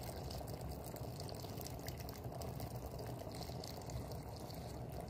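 Pot of hare stew simmering: a steady bubbling of the cooking liquid under the meat and vegetables.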